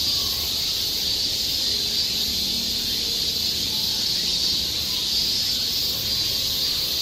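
Steady, high-pitched drone of insects calling in chorus, swelling slightly now and then.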